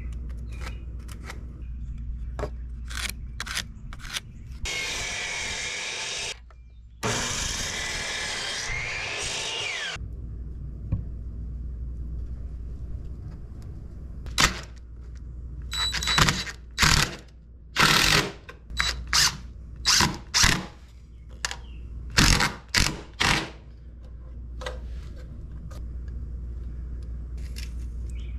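Power drill running in two stretches of a few seconds, then a string of short, loud bursts and knocks.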